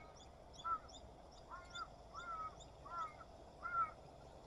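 Faint bird calls: a string of short, arched calls, one or two a second, with a small bird's high chirps in the first second and a half.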